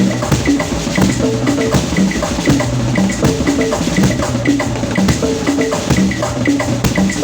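Live-sounding band music driven by drums and percussion: rapid drum and wood-block-like hits over a moving bass and keyboard line, with short high bell-like notes repeating in groups.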